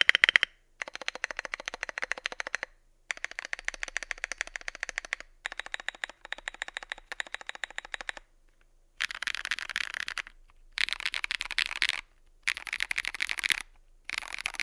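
Tofu65 mechanical keyboard with lubed Holy Panda tactile switches being typed on in fast runs of rapid key clacks. There are about seven runs, broken by short pauses.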